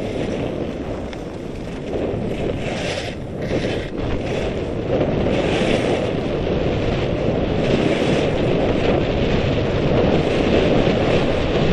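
Wind buffeting the microphone of a skier moving fast downhill, with skis hissing and scraping over packed snow. The rush grows louder about five seconds in as speed picks up.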